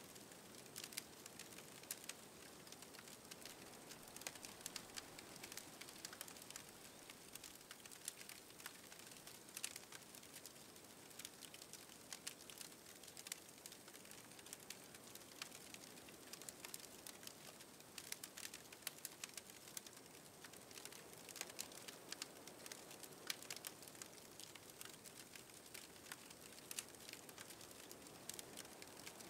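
Faint crackling of burning charcoal in a small camp grill, with many small irregular pops over a low hiss.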